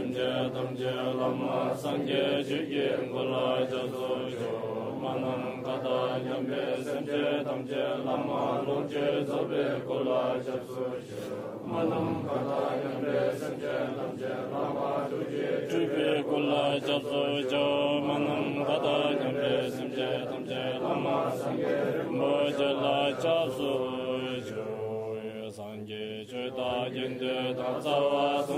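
A man chanting a Tibetan Buddhist recitation in a steady, continuous voice, with a couple of brief pauses.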